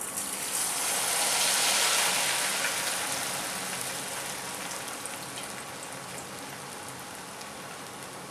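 Parboiled noodles deep-frying in hot oil: a dense sizzle that rises over the first two seconds as the noodles go in, then slowly fades.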